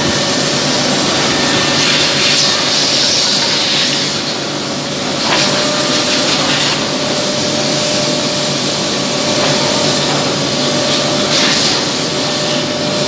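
Automatic CNC wood lathe running, a spinning wooden dowel being sanded by the machine's rotating flap-sanding wheel: a loud, steady hiss over a faint hum, swelling a little now and then.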